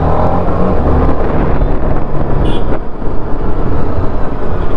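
The TVS Apache RR 310's single-cylinder engine running under throttle as the bike picks up speed, mixed with wind noise, with a brief high-pitched beep about halfway through.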